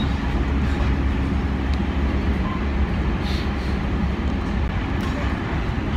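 Steady low rumble and hiss of a moving vehicle, with no clear changes or distinct events.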